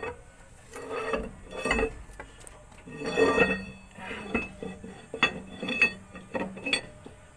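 Steel rear axle shaft of an Isuzu Elf truck being slid into the wheel hub and its flange fitted over the hub studs: an irregular series of metal clinks and clanks, some ringing briefly.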